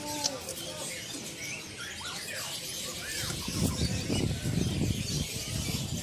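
Many caged songbirds chirping, with short, scattered high calls and little sweeping notes, and a low murmur building up about halfway through.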